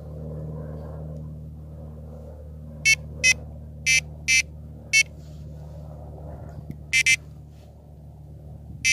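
Fox Micron M carp bite alarms giving short electronic beeps, set off as the line is moved over the sensor to show the sensitivity setting. There are seven beeps, starting about three seconds in, the last two close together.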